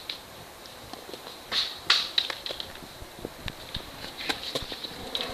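Skateboard on concrete: scattered light clicks and knocks, with a louder cluster about one and a half to two seconds in.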